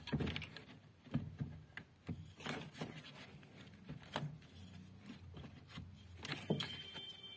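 Scattered light knocks, clicks and rubbing of metal parts being handled as a new washing-machine wash motor is set in place for its mounting screws.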